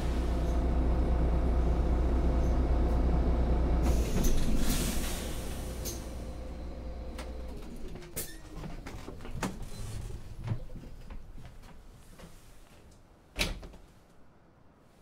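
Solaris city bus running with a low rumble, heard from inside the cabin. About four seconds in there is a burst of hiss; then the engine note slides down and stops. Scattered knocks and clicks follow as the sound dies away, with one loud clunk near the end.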